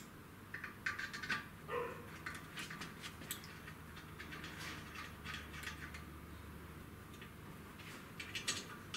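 Small metallic clicks and ticks of a hex key working socket-head cap screws into a metal mounting plate on a bench mill's column base. The clicks come in clusters, with one short squeak-like note about two seconds in, over a low steady hum.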